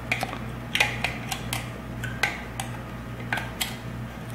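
Razor blade picking and scraping silicone off the glass electrode end of a CO2 laser tube: a string of irregular sharp ticks and short scrapes.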